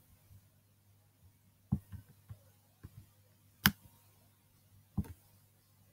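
Half a dozen or so sharp, scattered clicks and taps, the loudest about three and a half seconds in, over a faint steady low hum: a Chromebook's touchpad and casing being handled while a web page is scrolled.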